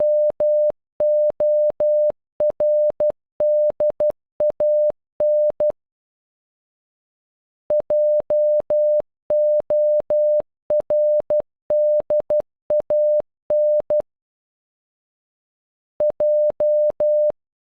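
Morse code played as a single steady mid-pitched beep, keyed in dots and dashes that spell JORDAN (.--- --- .-. -.. .- -.). The word sounds twice with a pause of about two seconds between. After a second pause, a lone J (dot, dash, dash, dash) begins near the end.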